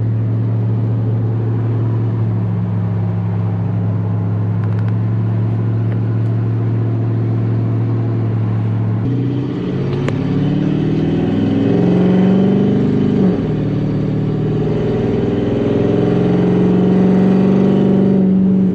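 GM LS V8 truck engine in a swapped 2004 Infiniti G35X, running under way. It holds a steady cruise for about nine seconds, then the revs climb under acceleration, dip briefly at a gear change, and climb again near the end.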